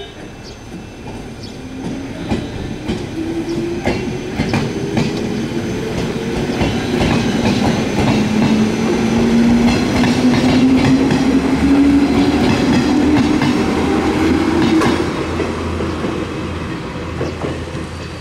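JR 121 series four-car electric train pulling away: a whine that rises slowly in pitch as it gathers speed, with wheels clicking over rail joints. It grows louder as the cars pass and fades after about fifteen seconds.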